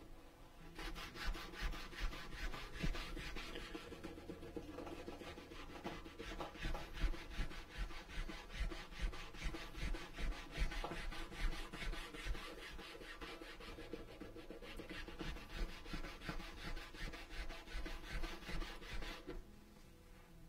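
Sanding stick rubbed rapidly back and forth along the cut edge of a leather strap, a scratchy, rasping run of strokes that starts about a second in and stops near the end.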